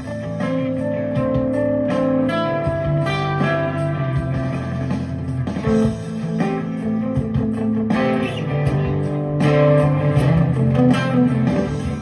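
Electric guitar played live over a backing track, the notes changing every second or so above a steady low accompaniment and an even beat.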